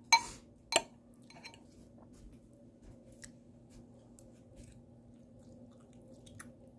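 A metal fork clinks sharply twice in quick succession, then a bite of slow-cooked beef is chewed quietly with faint soft clicks of the mouth.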